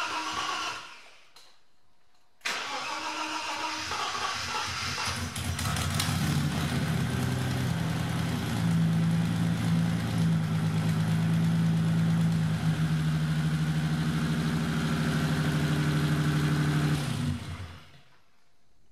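BMW E30 325i's M20 straight-six being started after four years laid up: the starter cranks it, it fires and settles into a steady idle, then it is switched off near the end.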